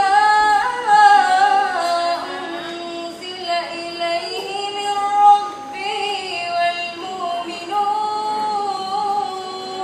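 A girl's voice reciting the Quran in the melodic, drawn-out tajweed style, holding long notes with ornamented turns in a few phrases, amplified through a microphone.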